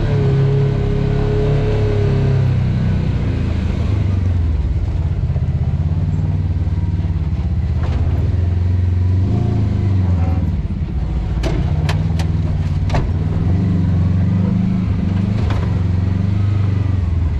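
Off-road vehicle engine running at low, steady revs while crawling over rock, with four sharp knocks a little past the middle.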